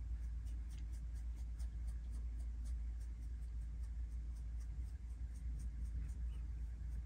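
Paintbrush bristles stroking across the wool fur of a felted dog head: a quick run of short, soft scratchy strokes, about four a second, over a steady low hum.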